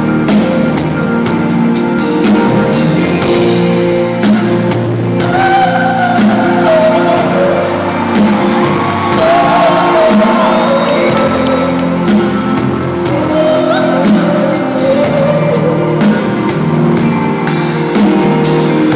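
Live band playing in a large arena, heard from the stands and echoing in the hall, with a sung melody over it from about five seconds in and shouts and whoops from the crowd.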